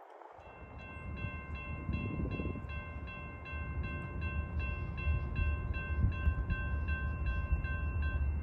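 Railroad grade-crossing warning bell ringing steadily, about three strokes a second, while the gates are down, over a low rumble that grows louder.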